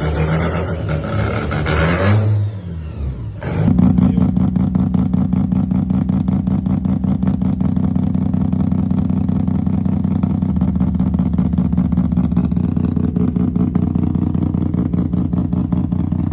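Mazda 12A two-rotor rotary engine revving, with the revs dropping away about two seconds in. After a cut, a 12A rotary idles with a steady, choppy pulse, the typical 'brap' of a ported rotary.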